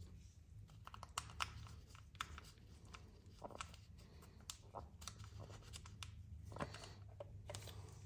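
Faint, scattered light clicks and taps of small metal parts and hand tools as the transmission oil filter cover is fitted back on, over a low steady hum.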